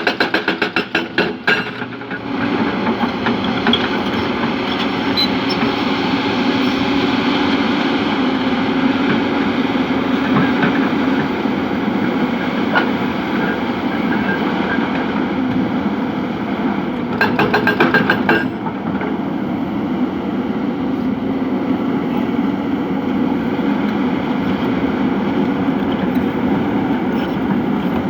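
Heavy diesel earthmoving machine's engine running steadily under load. A fast run of rapid knocks sounds in the first couple of seconds and again about two-thirds of the way through.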